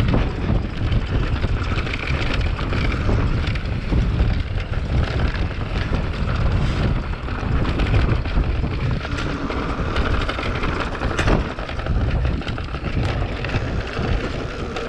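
Wind buffeting the microphone of a bike-mounted action camera, over the rumble of knobby mountain-bike tyres on a dirt trail, with many small rattles and knocks from the bike over bumps and one sharper knock about eleven seconds in.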